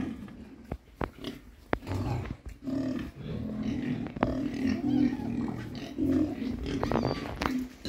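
Young pigs in a pen grunting, rough low grunts coming in irregular bursts, with scattered sharp clicks.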